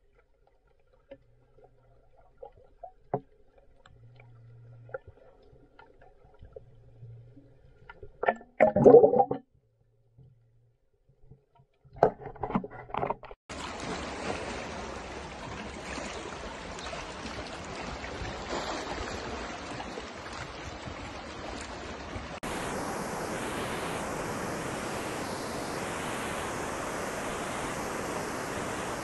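Faint clicks and knocks underwater for the first twelve seconds, with one louder burst about nine seconds in. Then steady noise of sea water washing over a rocky shore, followed by small waves breaking on a sandy beach.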